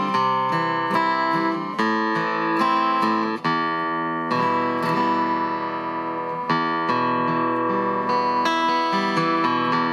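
Harmony acoustic guitar played fingerstyle: a steady flow of picked notes and chords that ring on, with a few longer held notes about halfway through.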